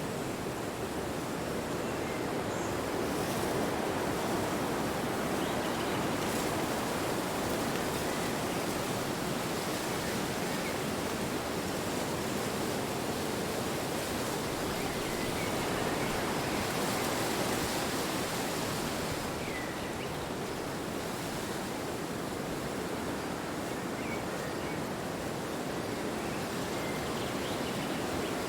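Wind blowing in a steady rushing noise that swells and eases slowly in gusts.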